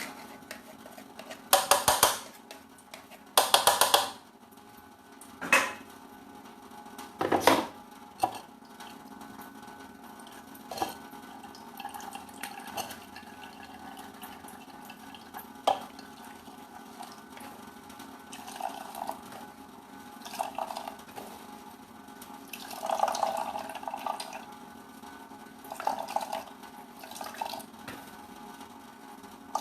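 Kitchen work while making a turmeric remedy. Bowls and utensils clatter in a few short bursts early on, then water splashes and pours in short spells over the second half, over a steady low hum.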